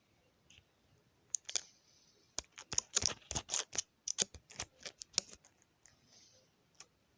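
Keyboard keys being typed: a run of quick, irregular clicks that starts about a second in, is densest in the middle and stops a couple of seconds before the end.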